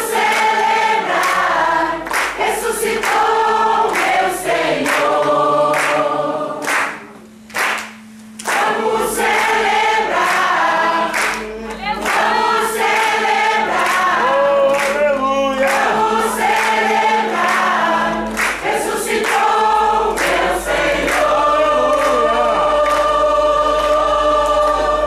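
A church choir singing a Christmas cantata song in several parts, with hand-clapping along to the beat.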